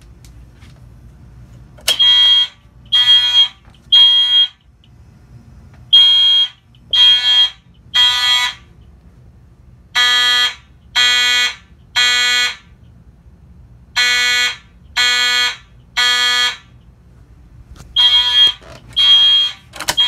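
Simplex fire alarm horns and horn strobes sounding together in groups of three short blasts with a pause between groups, the temporal-3 evacuation pattern of a fire alarm system in alarm. The horns start about two seconds in, right after a sharp click.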